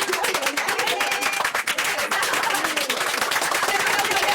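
A small group of people clapping fast and steadily, many sharp hand claps close together.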